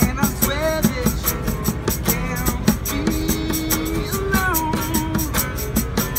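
Acoustic guitar strummed and a man singing, with a tambourine jingling in a quick, even beat and hand percussion thumping along.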